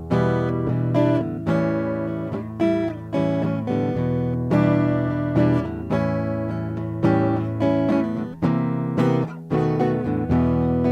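Acoustic guitar strumming a run of chords, heard through an Artec MSP 50 acoustic pickup, with a new strum every half second to a second.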